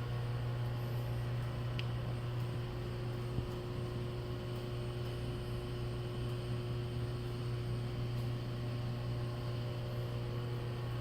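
Steady low electrical hum with a few faint steady tones above it and a light hiss, unchanging throughout.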